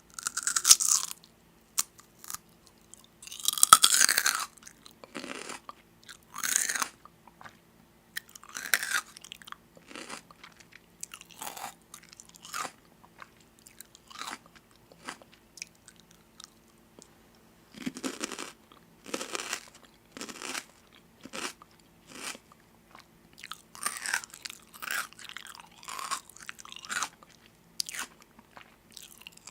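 Crunchy food being bitten and chewed close to the microphone, in irregular crunches a second or two apart, over a faint steady hum.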